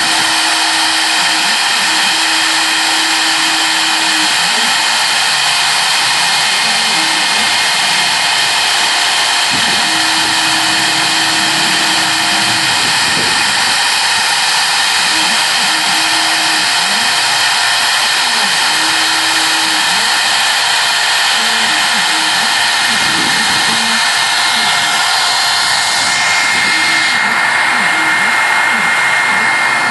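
CNC router spindle running with a steady high-pitched whine while its fine engraving bit mills isolation traces into a copper-clad PCB blank. A lower tone comes and goes under the whine.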